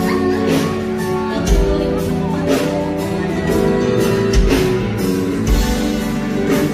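Live band playing a slow song, with sustained keyboard and guitar notes over a drum beat about once a second.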